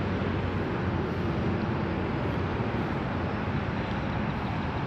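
Steady outdoor background noise: an even rushing hiss with a faint low hum underneath and no distinct events.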